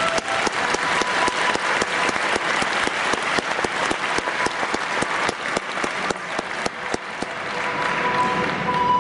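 Audience applauding steadily, with music fading back in near the end.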